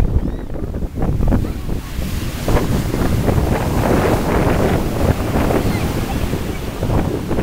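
Ocean surf breaking on a sandy beach, the wash rushing up the shore and growing louder from about two seconds in, with wind buffeting the microphone.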